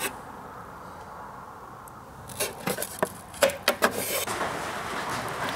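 Metal battery hardware being unbolted and handled: after about two seconds of faint room hiss, a run of short clicks, knocks and rubs as a bus-bar link and terminal are taken off a LiFePO4 battery pack.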